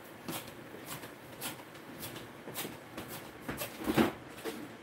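Scattered light clicks, knocks and rustling from kitchen items being handled out of sight, the loudest knock about four seconds in, over quiet room tone.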